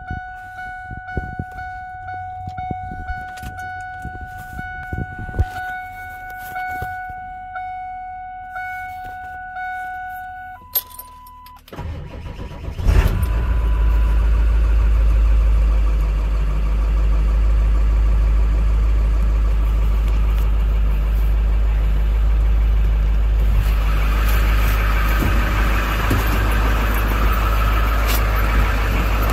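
A steady tone sounds for about ten seconds alongside light clicks and rattles. About twelve seconds in, the 1999 Ford F450 dump truck's engine is cranked and catches. It then runs steadily with a strong low rumble.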